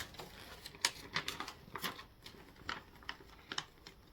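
Paper and blind-bag packaging being handled and unfolded by hand: irregular, crisp crinkles and clicks.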